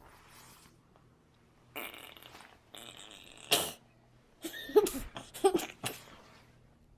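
A person's strange breathy noises and rasps, with a sharp puff about halfway through, then a quick run of short vocal sounds bending in pitch, the kind of odd sounds and breathing the uploader wonders may be part of a seizure.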